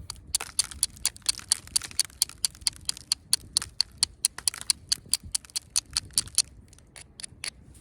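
Flint knapping: a stone point being worked with a copper-tipped knapping tool, making a fast run of sharp clicks, about five a second, that slows to a few separate clicks near the end.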